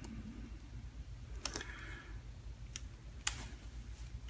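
Quiet handling of metal surgical instruments (scissors and forceps): about three short, sharp clicks over a low steady hum.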